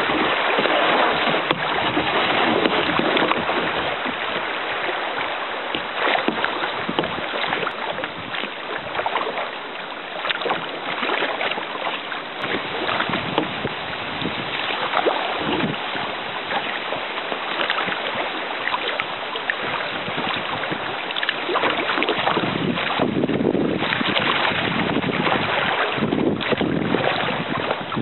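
River water rushing and splashing around a kayak running shallow riffles, mixed with wind buffeting the microphone mounted on the bow. A steady noise that eases off somewhat partway through and picks up again near the end.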